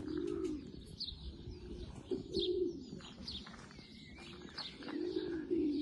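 Pigeons cooing, several low rolling coos, two of them close together near the end, with a small bird's short, high, falling chirps about once a second.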